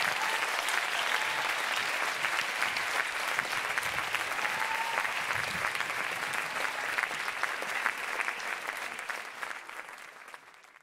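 Audience applauding: a dense, steady patter of many hands clapping that fades away over the last couple of seconds.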